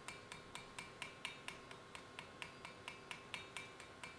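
Small hammer tapping steadily on a brass rivet pin, about four or five light, ringing strikes a second, peening it down to hold the horn and brass guard plates together.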